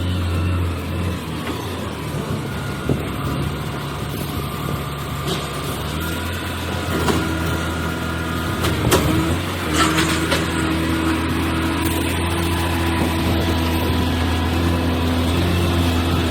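Engine of a heavy sawmill machine running steadily, with a few sharp knocks and a faint higher whine in the middle.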